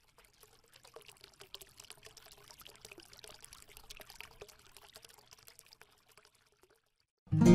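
A faint trickle of many small clicks, like water pouring, which dies away about a second before the end. Then strummed acoustic guitar music starts loudly near the end.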